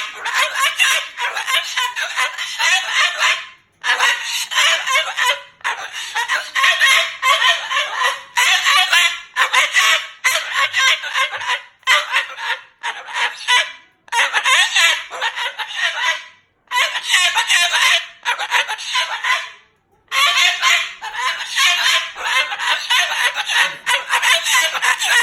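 Moluccan cockatoo calling loudly in long harsh bouts, with brief pauses every few seconds.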